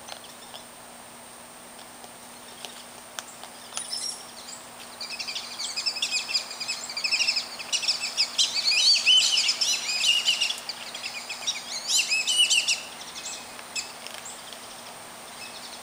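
Birds chirping: a fast, dense run of short high notes starting about five seconds in and stopping near the end, over quiet outdoor background.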